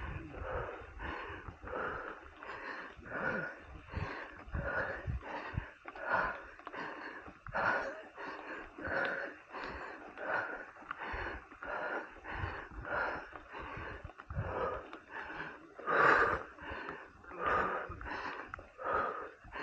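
A cyclist breathing hard and rhythmically from the effort of pedalling, about two breaths a second, the loudest near the end. There is low rumbling underneath.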